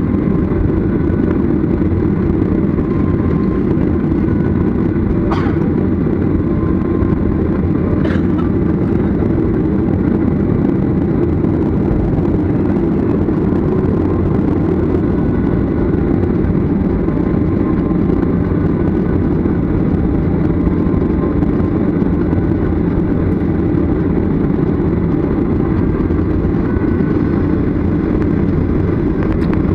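Cabin noise of a jet airliner taxiing: a steady low rumble of its engines running at taxi power. Two faint clicks come about five and eight seconds in.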